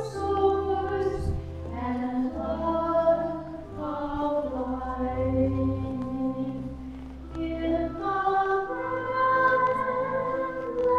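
Choir singing a communion hymn at Mass, slow held notes over a sustained low accompaniment.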